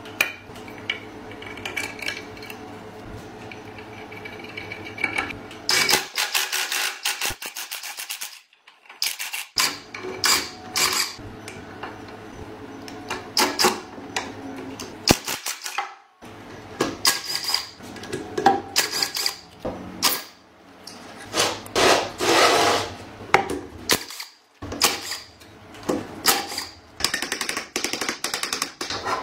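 Hand tools working on the parts of a concrete vibrator: a run of knocks, taps and scrapes on metal, in short clips with abrupt cuts between them.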